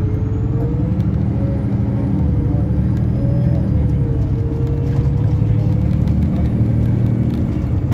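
Cabin noise of a moving road vehicle: a steady low engine and road rumble with a wavering drone that drifts slowly up and down in pitch.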